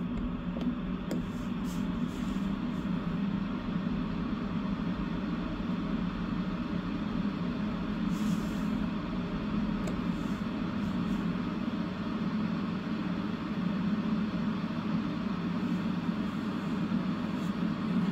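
Prima Klima Whisper Blower 125 mm inline duct fan (PK125WHSP-3) running steadily on speed setting 2, 420 m³/h: an even hum with a rush of moving air. Its inlet is open, with no hose or filter fitted, so it is a little louder.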